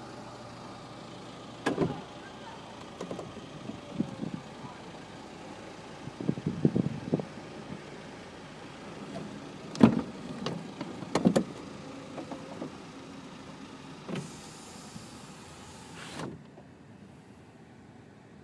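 Scattered knocks and rustles over a steady background noise, with the loudest knock about ten seconds in and a brief hiss near the end.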